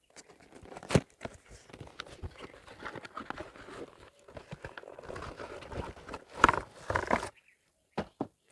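Unboxing handling of a boxed analog bathroom scale: packaging rustling and scraping with irregular knocks and clacks, a sharp click about a second in and the loudest clacks a little before the end.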